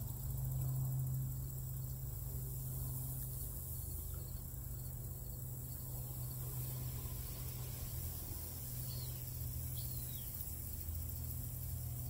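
Outdoor ambience: a steady low hum under a steady high hiss, with two faint short chirps about nine and ten seconds in.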